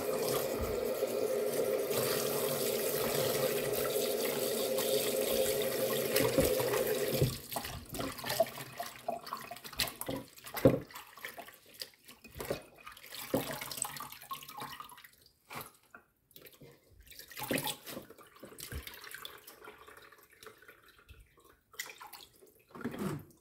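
Kitchen tap running into a steel pot of water while amaranth leaves are swished by hand. The tap stops about seven seconds in. After that come irregular splashes and drips as the wet leaves are lifted out of the water into a colander.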